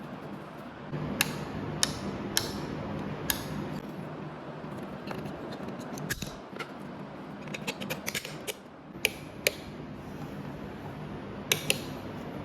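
Small hard parts of a wall switch bracket and its screw being handled and fitted by hand: scattered sharp clicks and light clatter, a quick run of them about two thirds of the way through, over a steady low hum.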